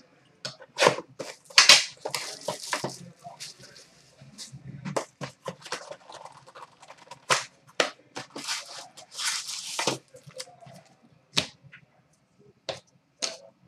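A sealed Panini Certified hockey card box being torn open: a run of sharp rips and crinkles of wrapping, then cardboard flaps pulled apart.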